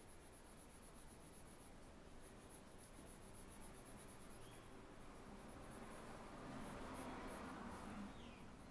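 Faint scratching of a pencil drawing on paper, growing louder about six seconds in.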